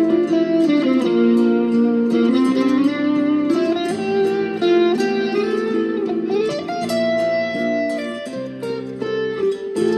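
Electric guitar, a Stratocaster, playing a slow instrumental: plucked, sustained melody notes over lower chord tones.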